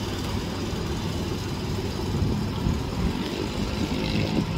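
Small fishing-boat engine running steadily, a low rumbling hum.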